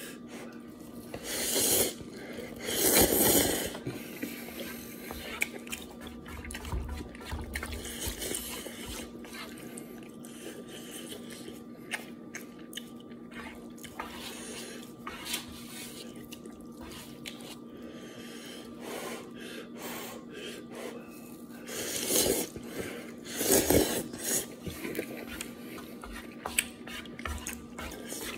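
A man slurping and chewing instant noodles, with small clicks of wooden chopsticks against a frying pan. A few long slurps come near the start and two more near the end, with quieter chewing between them.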